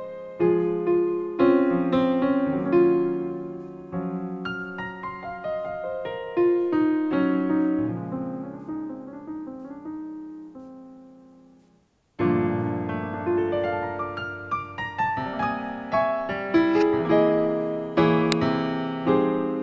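Background piano music, a flowing melody of struck notes. It dies away to a moment of silence about two-thirds of the way through, then the piano starts again.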